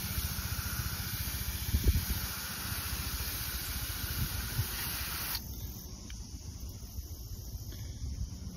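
A garden hose spray nozzle hissing as it sprays water against a car's side window. The spray cuts off abruptly about five seconds in.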